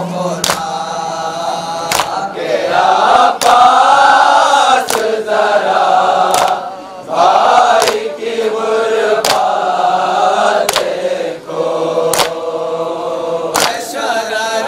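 Men of a Shia anjuman chanting a noha, a Muharram elegy, in chorus behind a lead reciter at a microphone. A sharp slap of matam, hands striking chests together, comes about every second and a half.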